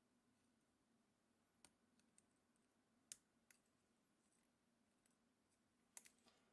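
Faint, sharp metal clicks from a Lishi AM5 pick-decoder being worked in an all-brass American padlock: a few single clicks spaced apart, then a quick cluster of clicks near the end.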